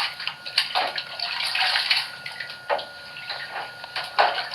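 Tap water running and splashing while a hen is rinsed under it, with a few louder splashes.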